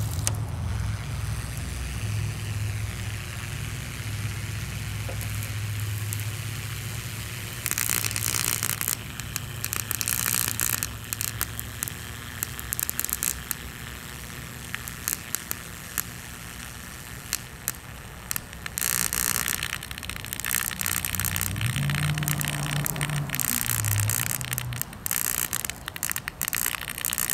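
Electric motor of a White-Westinghouse desk fan burning out: a steady low hum, then from about eight seconds in repeated bursts of crackling and sparking as the motor arcs, with a low drone that wavers near the end.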